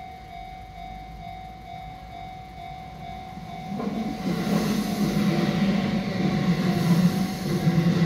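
Japanese level-crossing warning bell ringing in even repeated dings. About four seconds in, a Shin-Keisei Line electric train comes through the crossing, and the noise of its motors and wheels grows loud over the bell.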